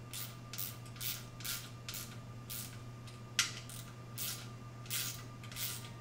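Small hand ratchet clicking in short rasps about twice a second as a bolt is run in and tightened, with one sharper click about halfway through. A steady low hum runs underneath.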